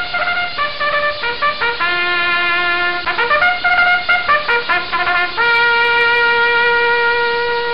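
Solo brass melody played as a sound-effect clip: a run of short notes with one longer note in the middle, ending on a long held note.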